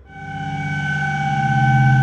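Eerie horror sound effect fading in: a low steady drone with several held ringing tones above it, swelling in loudness.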